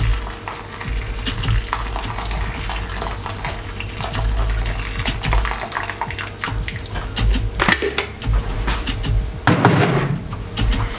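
Hot water sloshing in a ceramic bowl and dripping into a stainless steel sink, with scattered light clinks of the bowl and one louder splash near the end.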